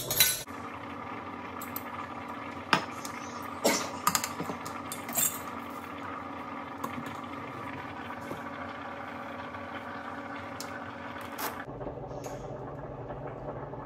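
A metal spoon and utensils clinking against glass measuring cups and a glass mixing bowl: a handful of sharp separate clinks, over a faint steady hum that stops near the end.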